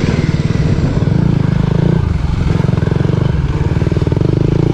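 Dirt bike engine running under load, its revs rising and falling repeatedly.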